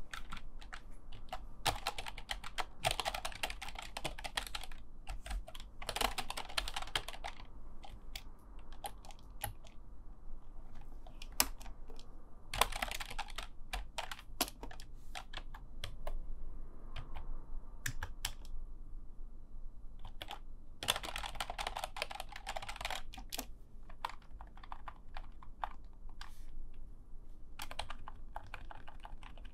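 Typing on a full-size computer keyboard: several runs of rapid keystrokes, with slower, scattered key presses between them.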